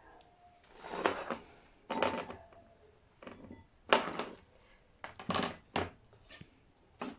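Kitchen knife chopping carrots into round slices on a cutting board: a series of separate knocks, roughly one a second.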